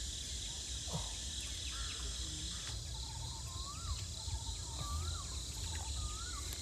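Steady high buzzing of insects, with a low rumble underneath. From about three seconds in, a bird repeats a short call roughly once a second: a quick stutter of notes, then a whistle that rises and falls.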